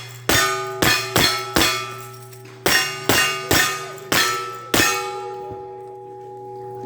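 A resonant piece of metal struck nine times in an uneven rhythm, each sharp clang leaving a ringing tone that dies away, over a steady low hum. The last strike, near the five-second mark, rings on the longest.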